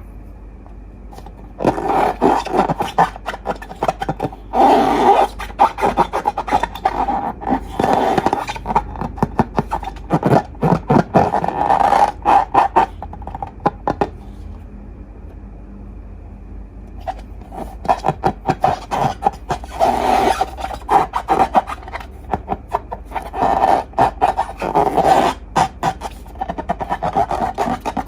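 Slime being squeezed and worked by hand, making dense wet crackling and popping clicks in two long stretches, with a quieter pause between them.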